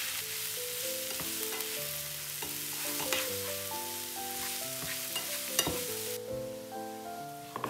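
Chopped onion and grated carrot sizzling in a hot non-stick frying pan while a slotted spatula stirs them, with a few sharp scrapes and knocks of the spatula on the pan. The sizzle cuts off suddenly near the end.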